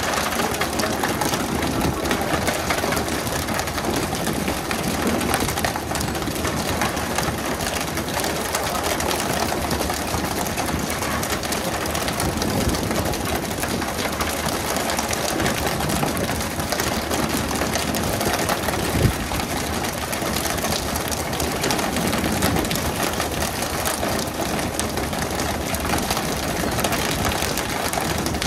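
A fishing boat's engine running steadily under a constant wash of noise. There is a single sharp knock about two-thirds of the way through.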